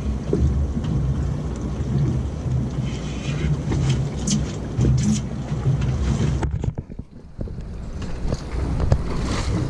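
Wind buffeting the microphone over open water, a rough, gusty rumble that dips briefly about seven seconds in.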